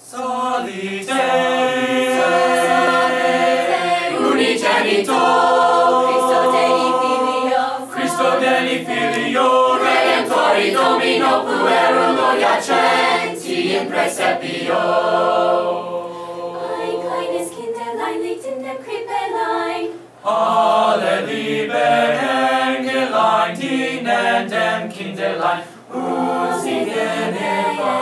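Mixed-voice madrigal ensemble singing a cappella in several parts, with sustained chords that shift from note to note and a short break about two-thirds of the way through.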